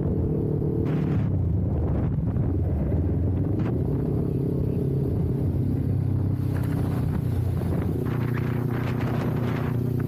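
Kawasaki Ninja 400's parallel-twin engine running on the move, its note shifting pitch with the throttle and rising about four seconds in. Low wind rumble buffets the camera's built-in microphone.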